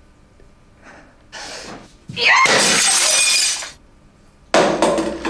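Glass shattering: a loud crash about two seconds in that runs on for over a second, after a softer rustle, and a second crash near the end.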